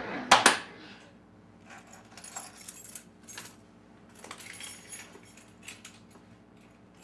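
Two sharp clicks close together about half a second in, then faint, scattered jingling of a set of keys as they are handed over and handled.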